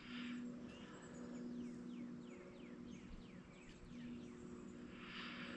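Quiet riverside ambience: a bird calls a quick run of short downward-sliding notes, about four a second, over a faint steady low hum.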